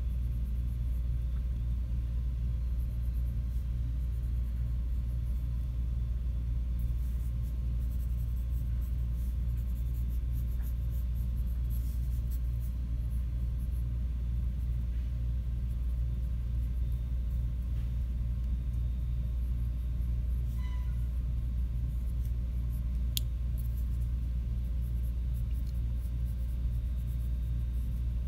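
A steady low rumble with faint scratching of a coloured pencil sketching on paper, and a light tick about two-thirds of the way through.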